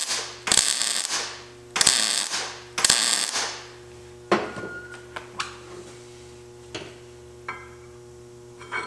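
Wire-feed welder tack-welding a steel caliper bracket onto a BMW E36 trailing arm: four short bursts of arc crackle, each half a second to a second long, in the first three and a half seconds. After them come a few light clicks and knocks over a steady hum.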